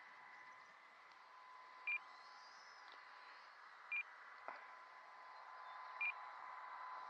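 Three short, high electronic beeps about two seconds apart, over a faint steady whine and hiss.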